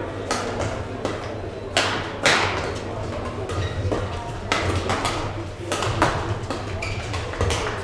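Badminton play in a large hall: several sharp knocks of rackets striking a shuttlecock, with the patter of players' footwork and a murmur of voices underneath, each hit ringing briefly in the hall.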